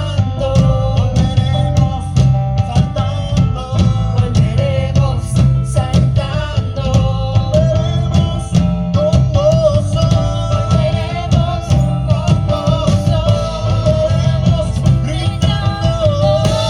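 Music with a singing voice over guitar and a steady drum beat.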